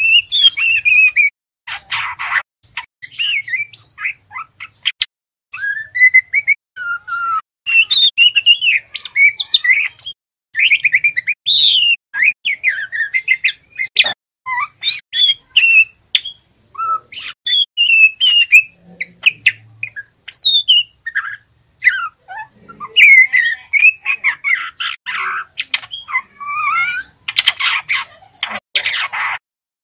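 Juvenile male white-rumped shama (murai batu) singing its immature learning song: a fast, continuous run of short chirps, twitters and whistled glides, broken by a few harsh rasping notes, the longest near the end.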